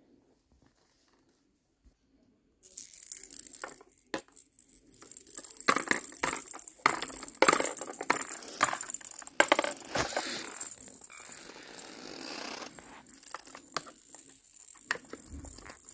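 Small hard objects clattering and rattling against each other and a hard surface, with many sharp clicks, starting about two and a half seconds in and thinning out toward the end.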